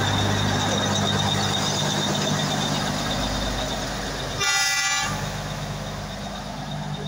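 Narrow-gauge diesel locomotive running close by with a steady engine drone, slowly fading. About four and a half seconds in, it gives one short horn toot of about half a second.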